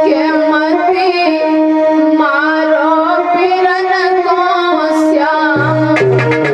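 A woman singing a devotional bhajan, her melody bending over steady held instrumental notes. Drum strikes come in near the end.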